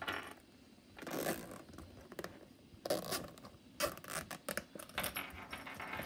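A silicone pop-it bubble purse being unzipped and rummaged through: the metal zipper pull and keychain clasp clink in short bursts, with rustling and scraping between.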